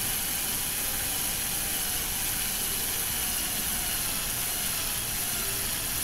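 Handheld power drill running steadily, its twist bit cutting a pilot hole through a bar of scrap metal with a high hiss. The cut is going well, throwing off a good chip.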